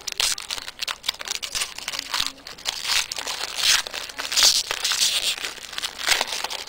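Foil trading-card pack wrappers crinkling and tearing as hockey card packs are handled and ripped open, a dense irregular crackle.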